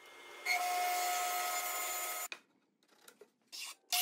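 Electric miter saw starting up with a high whine and running at speed while trimming a hardwood runner strip. It cuts off abruptly a little after two seconds in, a few light knocks follow, and the saw starts again at the very end.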